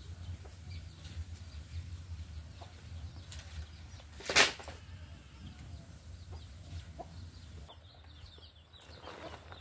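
Domestic chickens clucking in the background. About four and a half seconds in there is one loud, brief rustling burst.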